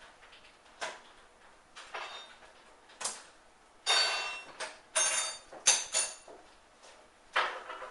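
Hands handling a book and its fittings on a wooden table: a string of about eight short scrapes, rustles and clicks as metal binder clips are taken off the book and a roll of sticky tape is handled, the busiest and loudest stretch in the middle.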